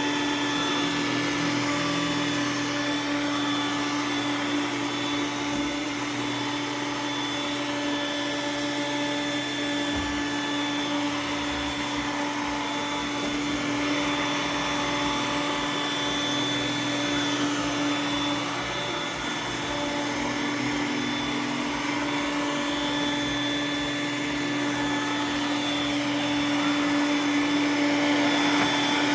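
Roomba s9 robot vacuum running, a steady motor hum with a high whine over the noise of its suction.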